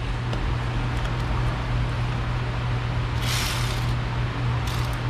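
A steady low machine hum, with short hissing rustles about three seconds in and again near the end.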